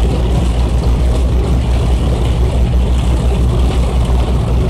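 Steady low rumble of a moving car's engine and tyres on a wet road, heard from inside the cabin.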